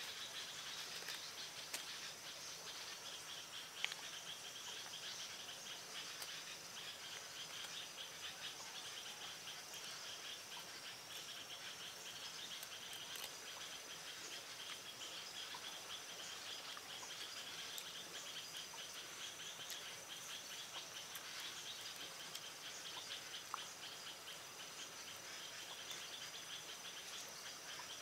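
A steady, faint chorus of insects trilling at a high pitch, with rapid fine pulsing throughout, and a few isolated faint clicks.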